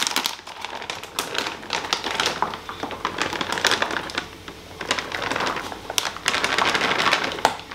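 Frozen blueberries shaken from a plastic bag into plastic Tupperware containers, making a dense, irregular run of small hard clicks as the berries land, with the bag crinkling.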